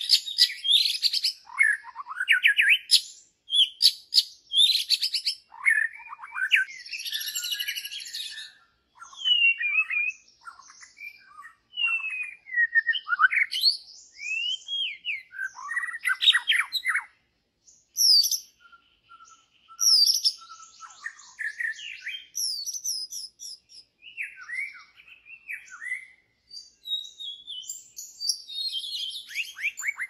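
White-rumped shama singing a long, varied song of clear whistles, slurred rising and falling notes and short chattering phrases, with brief pauses between phrases.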